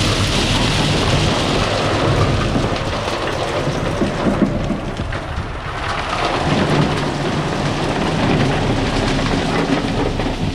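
Cobblestone pouring from a wheel loader's bucket into a dump trailer: a continuous rumbling clatter of rock landing on rock and the trailer bed. It eases about halfway through, then picks up again, with the loader's engine running underneath.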